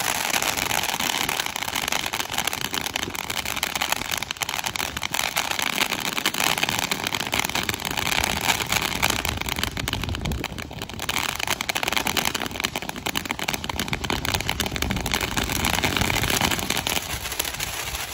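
Phantom Storm Runner ground fountain firework burning: a continuous loud rushing spray of sparks, thick with fast crackling. It eases briefly about ten seconds in, then builds again.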